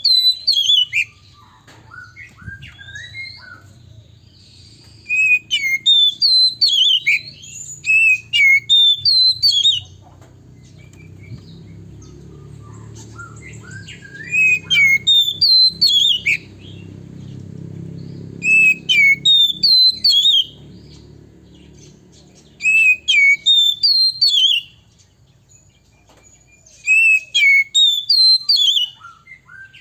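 Male oriental magpie-robin singing: bursts of loud, quick, sliding whistled notes, phrase after phrase with pauses of a few seconds between, over a faint low rumble.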